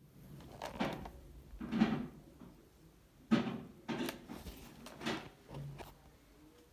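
Footsteps in socks on a wooden floor, stepping onto and off a glass bathroom scale: about five soft thuds and scuffs.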